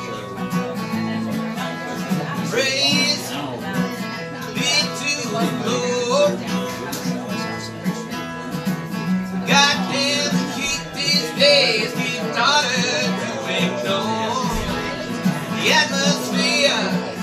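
Acoustic guitar strummed steadily while a harmonica in a neck rack plays a wavering, bending melody over it: an instrumental country-folk passage.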